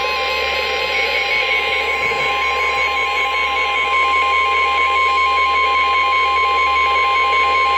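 NOAA Weather Radio 1050 Hz warning alarm tone: a single steady beep held unbroken over radio hiss. It signals that a warning is about to be broadcast.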